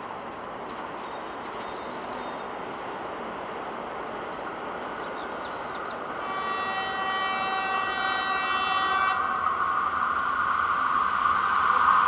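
Hyundai Rotem HRCS2 high-speed electric train approaching, its running noise growing steadily louder, with its horn sounding a steady tone from about halfway in.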